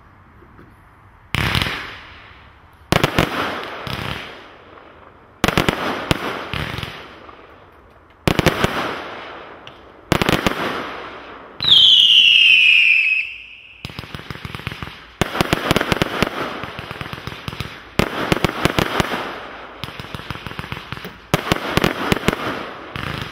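Hallmark Shockwave fanned firework barrage firing: a sudden shot about a second in, then a volley every one to three seconds, each trailing off into crackling. About halfway through, one shot carries a loud falling whistle, and after it the shots come faster over dense crackling.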